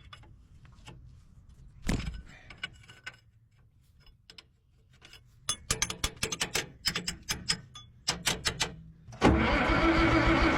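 Clicks and knocks of metal work on the bulldozer, with a quick run of clicks, then near the end the bulldozer's starter suddenly cranks the diesel engine in a loud, steady, pulsing drone.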